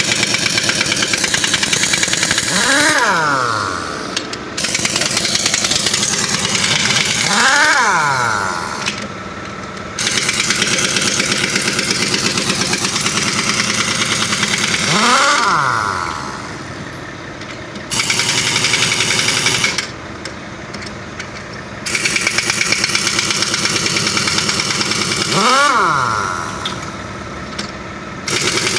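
An impact wrench hammering at a truck's wheel nuts to loosen them, in about five long bursts of rapid rattling with short pauses between. A brief whine that changes pitch comes near the end of several bursts.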